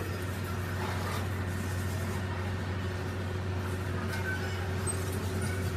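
A machine running with a steady low hum, and a few faint light clinks from metal parts being handled.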